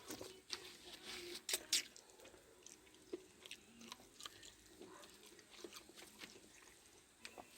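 Faint chewing and crunching from a dog eating, with scattered small clicks and knocks, loudest about one and a half seconds in.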